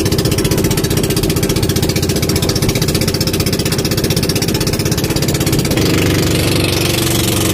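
Engine of a motorized outrigger boat running steadily under way, a loud, fast, even chugging pulse; its tone shifts slightly near the end.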